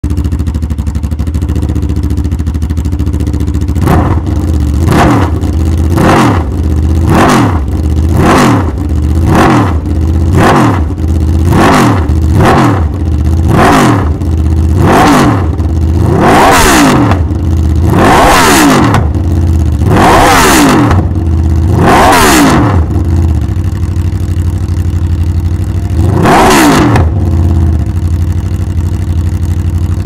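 Aprilia RSV4 1100's V4 engine idling and revved through an SC-Project GP-22 titanium slip-on exhaust. A run of quick throttle blips, about one a second, starts a few seconds in; the revs grow longer and higher through the middle, then the engine drops back to idle, with one last rev near the end.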